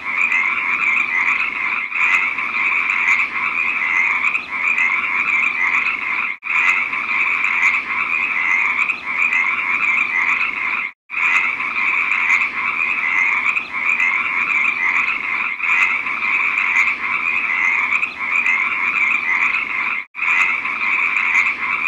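Frogs croaking in a dense, continuous chorus of quickly repeated calls. The sound cuts out briefly three times, about 6, 11 and 20 seconds in.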